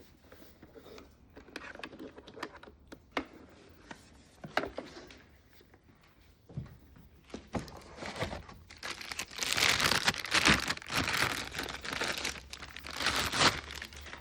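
Plastic packaging crinkling and tearing as it is handled. Scattered light clicks and rustles come first, then a louder spell of dense crinkling from about nine seconds in until just before the end.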